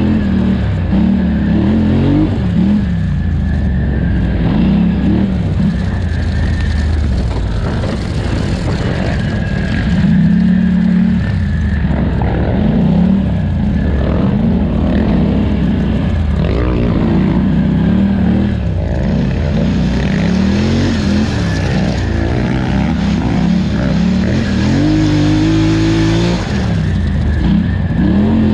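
2018 Polaris Scrambler 1000 XP ATV's twin-cylinder engine under hard race throttle, the revs rising and falling over and over as the throttle is worked on and off. Near the end the revs climb steeply.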